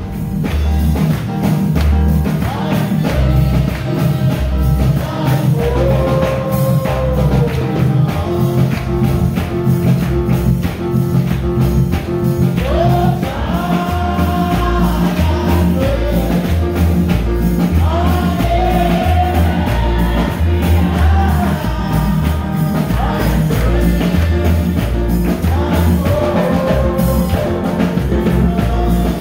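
Gospel music with singing over a steady beat and a repeating bass line.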